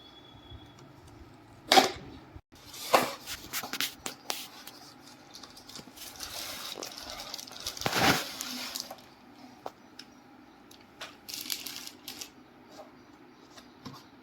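Unboxing handling: packaging and fan parts rustling, with a few sharp knocks and clicks as items are moved about, louder around two, three and eight seconds in.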